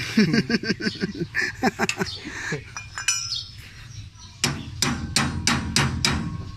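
Hammer striking steel parts of a combine harvester's reaper header, a run of about seven blows at roughly three a second with a metallic ring, starting a little past halfway.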